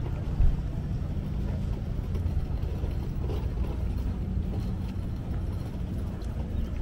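An engine running steadily at idle: a low, even rumble.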